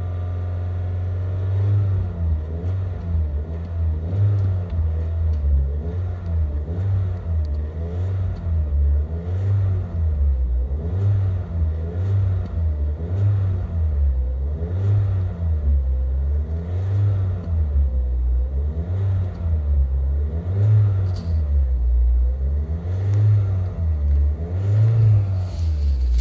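Low mechanical hum whose pitch rises and falls in a regular cycle about every two seconds, with faint ticks through it. It starts steady and begins cycling about two seconds in. This is an unwanted extraneous noise from a machine.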